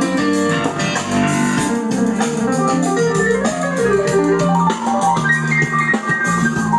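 Recorded music played loud through a PA sound system during a sound check: a keyboard or organ-like melody of stepping notes over a steady bass line.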